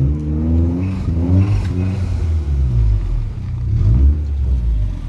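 Turbocharged Rover 620's four-cylinder engine revving under acceleration, its pitch rising in several pulls with dips between, and climbing again near the end.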